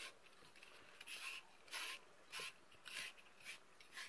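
Deshedding tool raking through a short-haired dog's coat in short scratchy strokes, about two a second.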